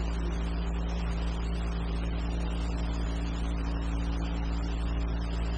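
Steady low hum of several level tones under an even hiss, the background noise of an old film soundtrack; no mechanical clicks.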